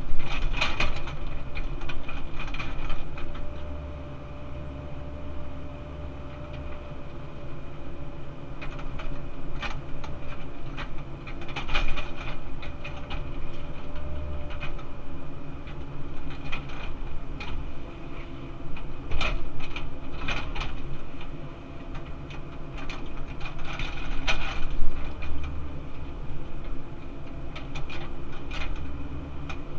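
Cat 308 CR excavator heard from inside its cab: the diesel engine running steadily under hydraulic load while the boom and bucket work. Clanks and rattles come several times, as the bucket digs and dumps backfill.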